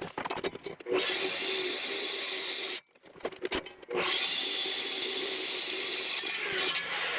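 A power tool running in two bursts, the first about two seconds long, then a brief stop, then about three seconds more.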